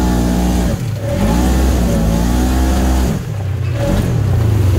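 Engine of a 900 cc side-by-side UTV with a CVT, revving in surges on a rough trail. It climbs, eases off about a second in, climbs and holds, then drops to a lower, steadier note about three seconds in.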